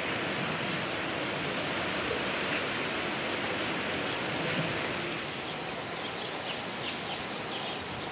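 Steady rushing background noise of a rural village street, with small birds chirping faintly from about five seconds in.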